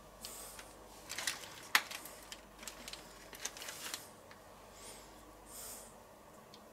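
Food being pressed and packed by hand into a small cast-iron Dutch oven: soft rustling and squishing with scattered light clicks and taps, the sharpest just under two seconds in. There are two soft hisses, one near the start and one about five and a half seconds in.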